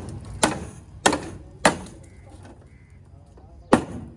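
Hand hammer striking the crash-bent sheet-metal front end of a Toyota Hilux, panel-beating it back into shape: three sharp metallic blows about half a second apart, a pause, then a fourth blow near the end.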